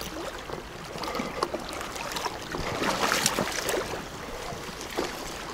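Fast-flowing river water rushing over a shallow bed, with scattered sharp splashes and knocks, a little louder around the middle.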